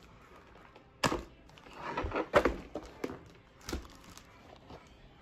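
Plastic film crinkling as it is peeled off a foam tray of ground turkey, with three sharp knocks about a second apart as the tray and the meat are handled on a cutting board.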